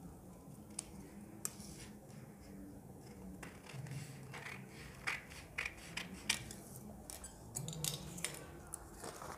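Scissors snipping through folded paper: a run of short, sharp, irregular snips.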